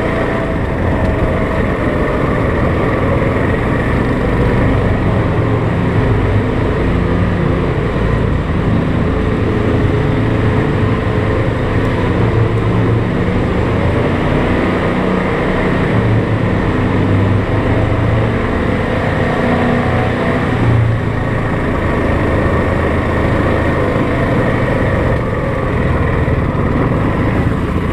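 ATV engine running while riding along a trail, a steady drone whose pitch shifts a little up and down as the throttle changes.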